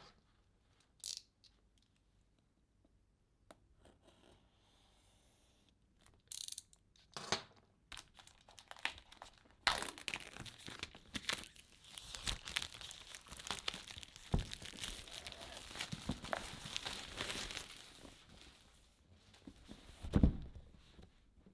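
Packaging being unwrapped: a few scattered taps, then about ten seconds of continuous tearing and crinkling of wrapping, ending with one thump near the end.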